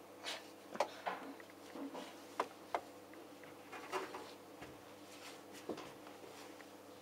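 Scattered light clicks and knocks from handling the heat pump dryer's fluff filter and its clip, about seven in all, over a faint steady hum.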